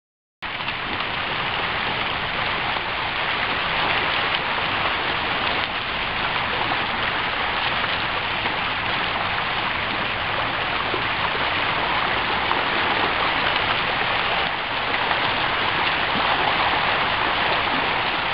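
Shallow river rushing steadily over stones, cutting in abruptly about half a second in.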